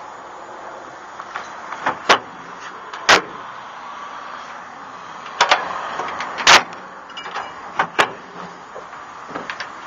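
Chevy S-10 pickup tailgate being worked on its newly fitted cable straps: about five loud, sharp metal clanks at irregular intervals, with lighter knocks and rattles between them.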